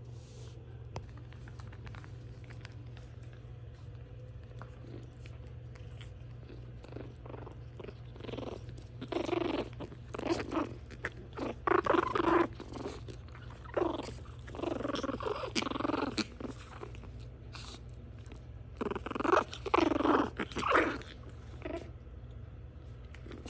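Shih Tzu puppies play-growling while they wrestle, in a series of short rough bursts through the second half, loudest near the middle and again near the end. A steady low hum lies underneath.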